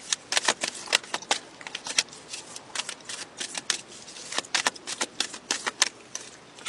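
A deck of cards being shuffled by hand: a quick, irregular run of sharp card snaps and clicks.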